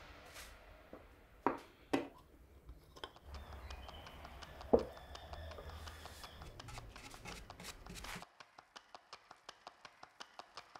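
Faint handling sounds of a paintbrush and varnish tin while stain-and-varnish is brushed onto a pine shelf: a few sharp clicks and knocks over a low hum. From about eight seconds in comes a steady ticking, about three a second.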